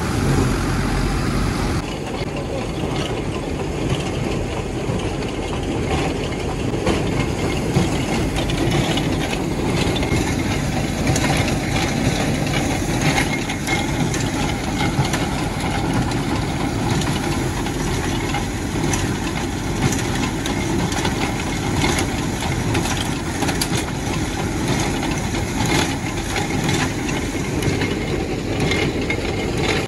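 An engine running steadily, with many small clicks and knocks over it; the sound changes about two seconds in.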